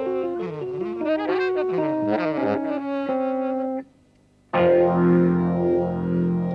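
Jazz-fusion saxophone playing a melodic line over the band, breaking off just before four seconds in. After a brief gap, sustained keyboard chords with a slow, repeating sweep come in.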